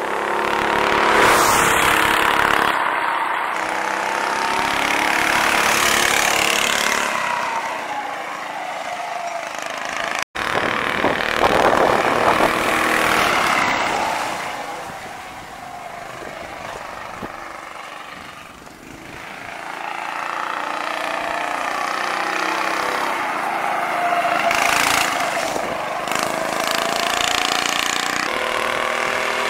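Predator 212cc single-cylinder engine of a homemade go-kart, driven through a Comet torque converter, revving as the kart drives laps. Its pitch and loudness rise and fall several times as it speeds up, passes and slows, with a short break about ten seconds in.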